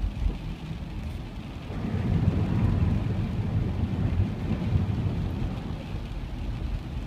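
Car driving through standing floodwater on a rainy road, heard from inside the cabin: a steady rush of tyres in water and spray against the body. It grows louder from about two seconds in, as water sprays over the windshield, then eases off.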